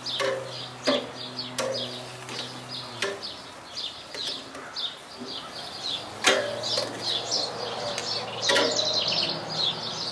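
Several sharp clacks of metal tongs against the grill grates as bratwursts are turned and moved on a gas grill, with birds chirping continuously in the background.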